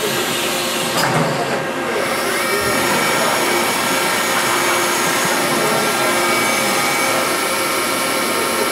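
Milltronics RH-25 CNC mill at the end of an automatic tool change: a sharp knock about a second in as the tool carousel swings away, then the spindle spins up, its pitch rising about two seconds in, and runs with a steady whine over a hiss of machine noise.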